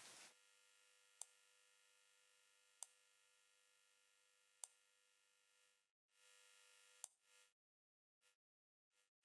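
Near silence: a faint steady hum with four soft, unevenly spaced ticks. The hum breaks up and cuts in and out near the end.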